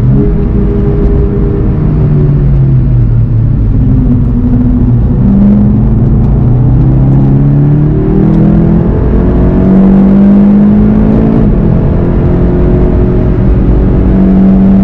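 Volkswagen Golf 7 GTI TCR's turbocharged four-cylinder engine heard on board under hard driving: the engine note falls as the car slows through a corner, then rises again through several upshifts as it accelerates hard, over steady tyre and road noise.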